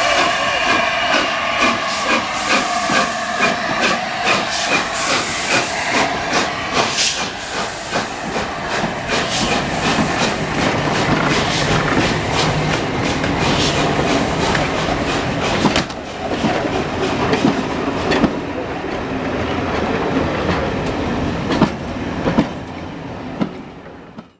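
LNER A4 Pacific steam locomotive 60009 passing at speed, then its train of BR Mk2 coaches rolling by, wheels clicking over the rail joints. A wavering high ringing tone sounds in the first few seconds, and regular beats come about twice a second as the engine goes past. The clicking thins out over a steady rumble and fades out near the end.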